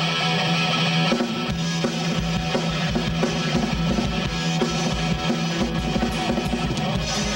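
Rock band playing live on electric guitar and drum kit. A held electric guitar chord rings for about a second, then the drums come in with a regular kick-drum beat and the full band plays on.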